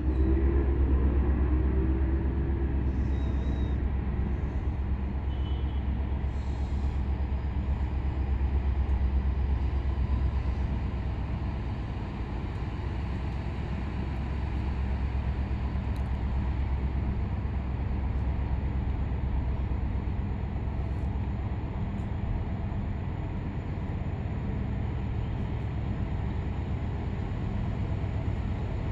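Freight train's diesel locomotive running with a steady low rumble. A few faint, brief high squeaks come about three and seven seconds in.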